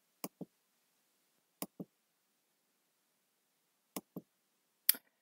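Computer mouse clicking: three pairs of short clicks a second or two apart, then one louder single click near the end.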